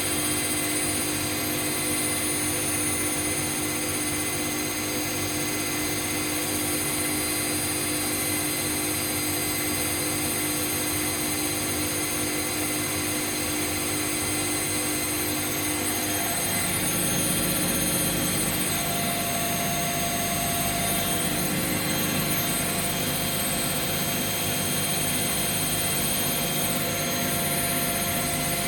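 Two front-loading washing machines, a Bosch Classixx 1200 and a Hoover, running their final spin together: a steady whine and hum from drums and motors at speed. About 16 seconds in the pitch changes as one machine shifts its spin speed.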